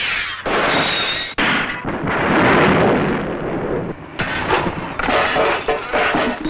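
Cartoon explosion and destruction sound effects: a wavering high whine gives way to a loud, noisy blast that rumbles on in several surges. Clattering crashes of falling debris follow near the end, and the noise stops abruptly.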